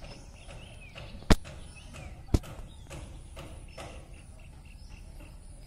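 Two sharp, short clicks about a second apart, over faint bird chirps and quiet outdoor background.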